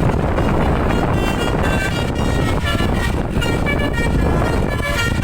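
Bus telolet horn, a multi-trumpet basuri air horn driven by a DAV module, playing a melody of short changing notes from about a second in, over steady engine and wind rumble.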